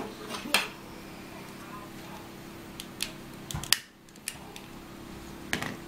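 A few sharp clicks of a long-nosed utility lighter being sparked, loudest about three and a half seconds in, as it lights the fuel in the burner cup of a tabletop smokeless charcoal grill. A steady low hum runs underneath.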